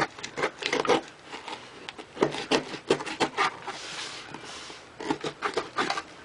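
Cardboard shipping box being handled and worked at: a run of short knocks, taps and scrapes, with a longer scraping rasp about four seconds in.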